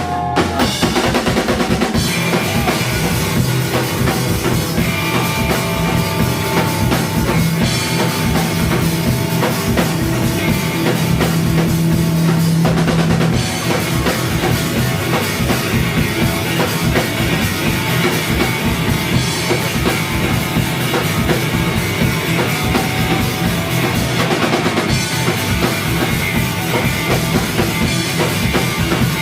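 Live rock band playing an instrumental passage at full volume, the drum kit driving it with kick drum and snare.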